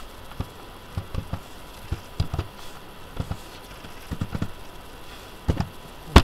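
Computer keyboard keys being pressed in irregular short runs of clicks while a console command line is edited. The loudest keystroke falls near the end.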